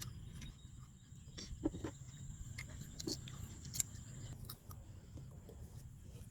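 People chewing and handling food: scattered small crunches and clicks over a low steady rumble.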